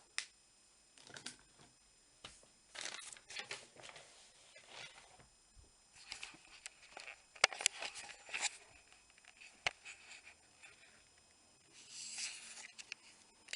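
Quiet, irregular rustling with scattered light clicks and taps of small objects being handled. The sharpest clicks come in a cluster a little past the middle.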